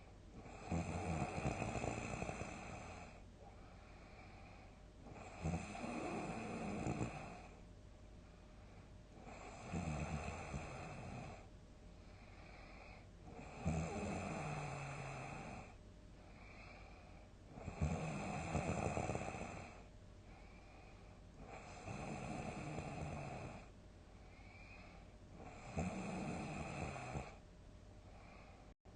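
A person snoring loudly in deep sleep: seven long snores about every four seconds, each starting with a sharp snort.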